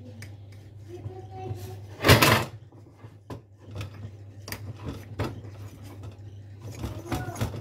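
A spoon clicking and scraping against a small ceramic bowl while softened butter is mixed with seasonings, with one louder scrape or bump about two seconds in and a few sharp clicks after it.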